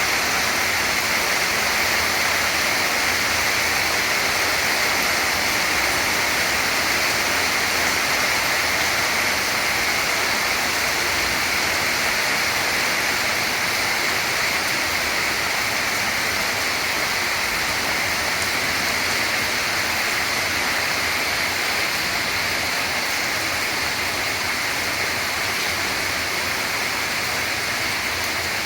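Steady rain falling: an even, unbroken hiss with no distinct drops standing out.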